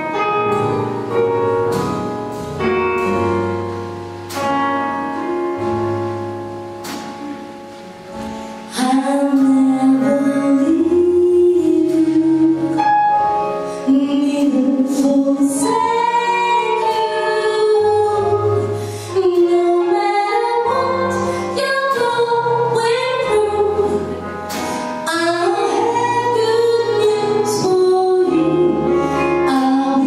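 Live gospel song: keyboard chords over sustained bass notes, then a solo female voice comes in about nine seconds in and sings a slow, ornamented melody over the accompaniment.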